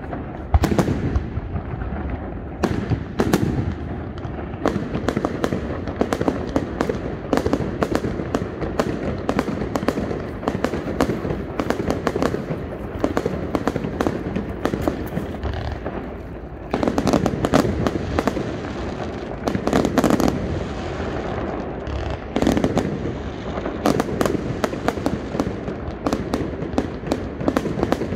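Aerial fireworks display: a continuous run of shell bursts, bangs and crackling. Several louder, denser volleys come in the second half.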